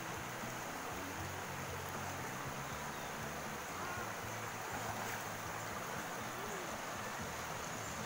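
Water rushing steadily past a small boat moving along a river, with a low hum underneath.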